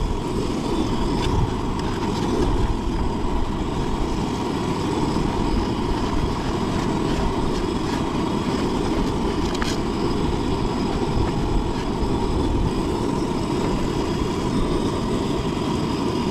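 Steady wind rumble on the microphone over fish frying in oil in a pan on a portable gas burner, with a couple of light clicks.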